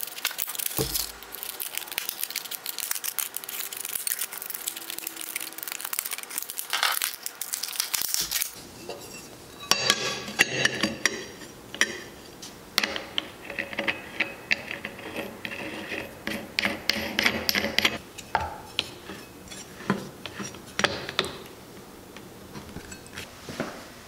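Crinkling and crackling of a plastic blister pack being cut open with scissors and handled. From about eight seconds in come metallic clinks and rattles as a wood-carving disc is fitted onto an angle grinder.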